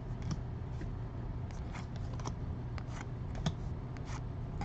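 Baseball cards being handled and flipped through one after another: a string of soft clicks and short rustles as cards slide against each other, over a steady low hum.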